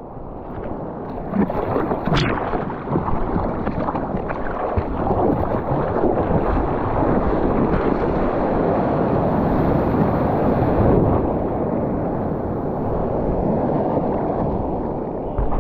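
Ocean surf churning in a steady, muffled rush, with wind buffeting the microphone; it builds over the first couple of seconds.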